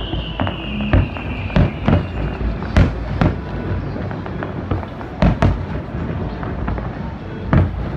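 Fireworks going off in a string of sharp bangs at irregular intervals, about a second apart, over constant crackling. A high whistle slowly falls in pitch during the first two seconds.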